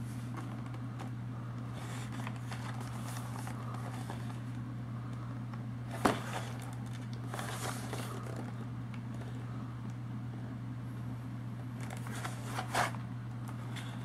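Fingers handling and turning a cardboard snack box, with soft rubbing and scraping on the carton. A sharp tap comes about six seconds in and a smaller double knock near the end, all over a steady low hum.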